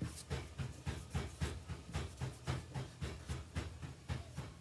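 Rapid, steady panting, about four breaths a second.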